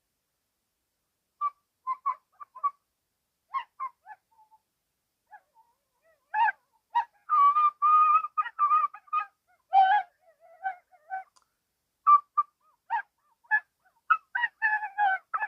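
Bird-like honking and chirping calls, short and pitched, coming in scattered bursts with gaps between them and growing busier about six seconds in.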